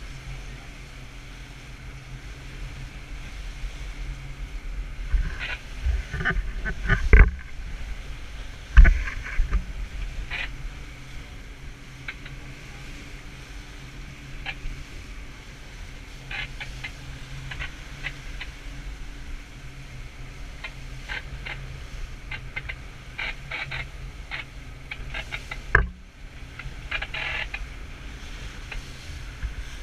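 Fishing boat's engine running steadily while the boat is under way, with wind and rushing water. Scattered clatters and a few sharp knocks, the loudest about seven and nine seconds in and another near the end.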